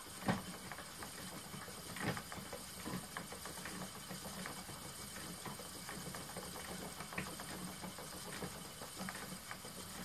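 Spinning wheel running while yarn is spun: a steady low hum with many small, irregular clicks.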